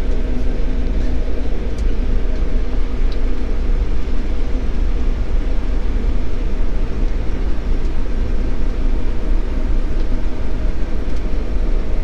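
Combine harvester running under load while harvesting wheat, heard from inside the cab: a steady machine drone with several even low hums.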